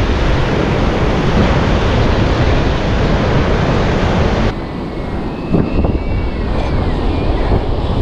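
Wind buffeting the microphone over breaking ocean surf. About halfway through, the harsh wind noise cuts out suddenly, leaving the lower rush of the surf.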